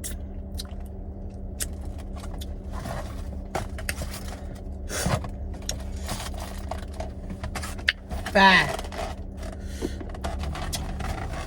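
Scattered clicks, scrapes and rustles of things being handled, over the steady low hum of a car's idling engine.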